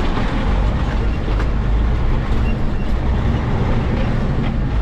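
Pickup truck driving on a rough farm road, heard from inside the cab: a steady low engine and road rumble with a few light rattles.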